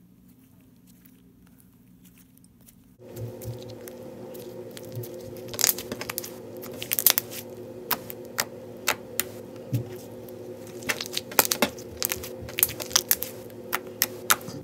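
Slime being squeezed and pressed by fingers, giving a run of sharp pops and crackles as air pockets burst, thickest in the second half. A steady low hum starts about three seconds in.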